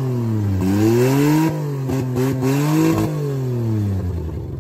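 Car engine, freshly jump-started, being revved up and down in repeated swells about every one and a half seconds to keep it running, then settling to a steady idle near the end.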